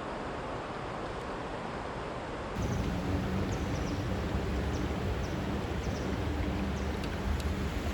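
Rushing creek water, a steady dense wash that gets louder about two and a half seconds in, with a few short high chirps over it.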